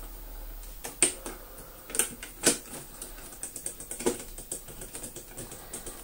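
Hard plastic parts of a Dyson DC24 upright vacuum clicking and knocking as an accessory part is worked onto the top of its handle and wand: a few sharp clicks, then a run of lighter, irregular ticks.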